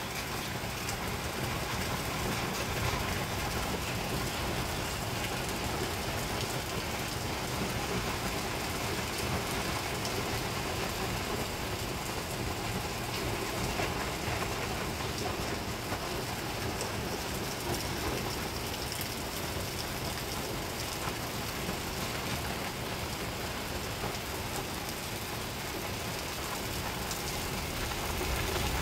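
Steady rain falling: an even rush of rain with many small drop ticks.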